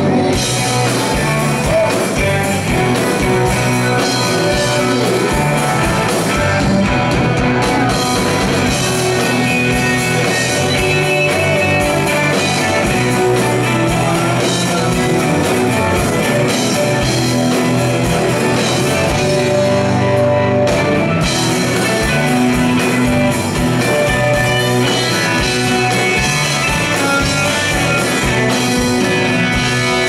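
Live rock band playing: electric guitars, bass guitar and drum kit, loud and steady, heard from among the audience in a hall.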